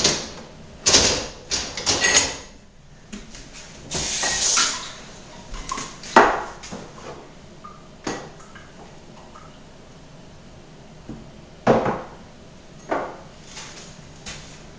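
Kitchenware being handled on a counter: scattered knocks and clinks of a blender jar, pitcher and glass being picked up and set down, with a brief hiss about four seconds in.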